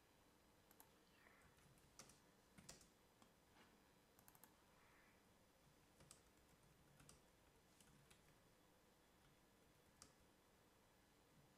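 Faint computer keyboard typing: about a dozen scattered, irregular key clicks.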